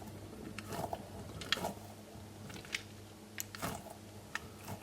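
Hands handling and squeezing an Orbeez-filled pineapple squeeze toy: scattered soft clicks and crackles, a few louder ones, over a steady low hum.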